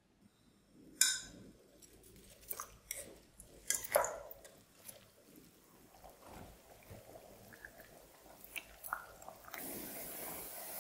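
Potato wedges deep-frying in oil a second time: crackling and popping, with several sharp clicks, the loudest about a second in and about four seconds in. Near the end the sound turns into a steady, even sizzling hiss as the oil bubbles hard around the fries.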